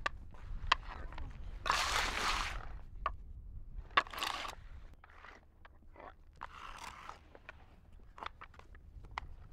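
Wooden hand blocks of prostrating pilgrims knocking and scraping on an asphalt road, with footsteps. Sharp clacks, the loudest about 4 s in, alternate with longer sliding scrapes as the hands slide forward along the surface, and lighter ticks follow near the end.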